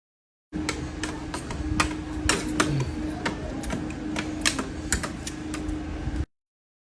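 A quick, irregular run of sharp clicks over a steady low hum, starting and stopping abruptly.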